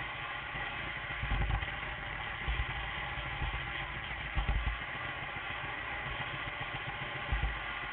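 G-scale model train running on the track: a steady motor-and-gear hum with a few short low thumps.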